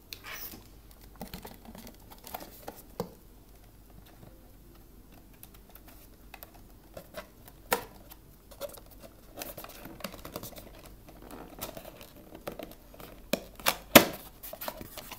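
Cardboard camera packaging being handled and opened: scattered rustles, scrapes and light taps as the boxes are turned over and pulled apart, with a few sharper knocks, the loudest near the end.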